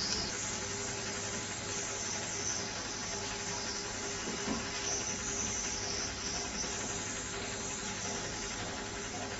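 Hot air rework gun blowing a steady hiss with a faint hum, heating a chip's pins until the solder melts.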